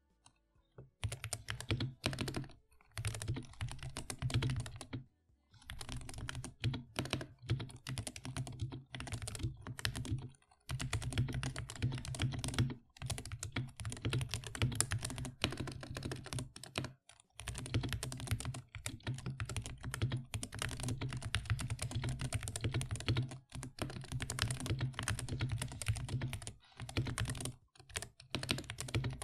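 Mechanical keyboard being typed on fast and steadily: a dense run of key clicks and clacks, broken by a few short pauses.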